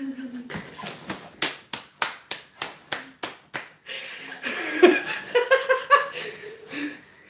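Hand claps, about three a second for some three seconds, followed by a woman laughing.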